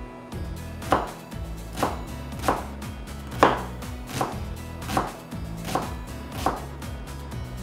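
Chef's knife chopping an onion on a plastic cutting board: about eight slow, even strokes, each a sharp knock of the blade onto the board, over soft background music.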